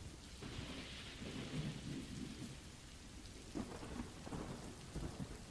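Rain sound effect: steady rainfall with thunder rumbling low, swelling from about half a second in and rolling on in a few heavier waves.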